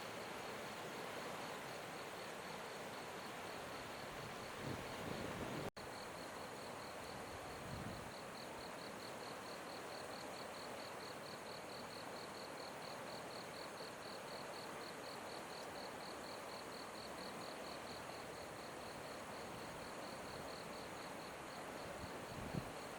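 An insect, cricket-like, chirping in a fast, even pulse at a high pitch over the steady rush of flowing river water. The sound drops out for an instant about six seconds in.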